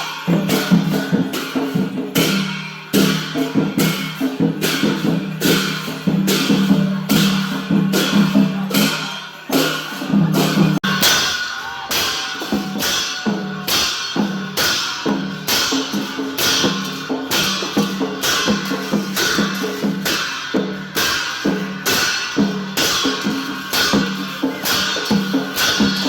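Traditional percussion music with steady, evenly spaced drum and cymbal beats, about two a second, played for a masked Lakhe dance. A low held tone runs under the beats, strongest in the first half.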